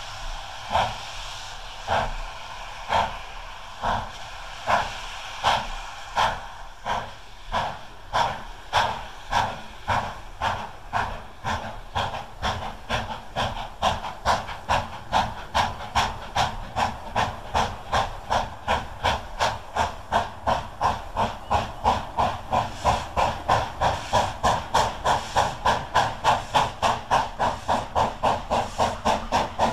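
GWR 'Castle' class 4-6-0 steam locomotive No. 7029 Clun Castle getting away with a train, its exhaust beats quickening from about one a second to about four a second and growing louder as it accelerates.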